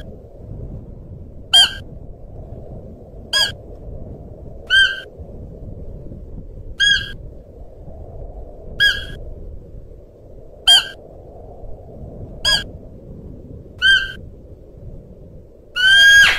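Siberian musk deer giving short, high-pitched calls about every two seconds, nine in all, the last one longer and louder, over a steady low background noise.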